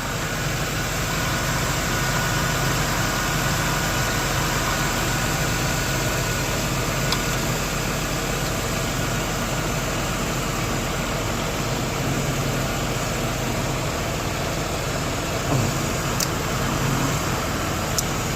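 A Chevy Venture's 3.4-litre V6 idling steadily, with a faint steady whine over the engine hum and a few light clicks near the end. The engine has a leaking head gasket and is running to circulate a head gasket sealer through the coolant.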